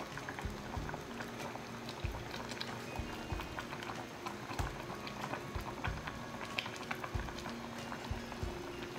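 Sinigang, a tamarind-soured fish-head soup, boiling in a stainless steel pot, with steady bubbling and irregular small pops.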